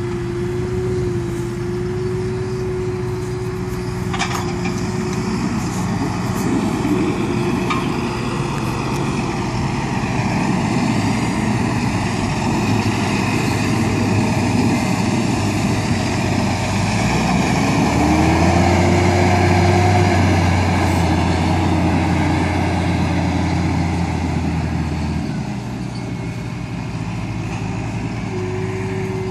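Large farm tractor's diesel engine running steadily while pulling an umbilical-fed dribble-bar slurry applicator. It grows louder as the tractor passes close, with a deeper hum and a rising, then falling engine note about two-thirds of the way through.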